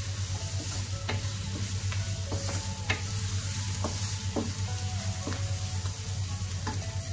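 Onion, tomato and spice masala sizzling in oil in a nonstick wok while a wooden spatula stirs and scrapes it, with irregular scrapes and taps against the pan over a steady hiss. The masala is being sautéed until the raw smell of the spice powders is gone.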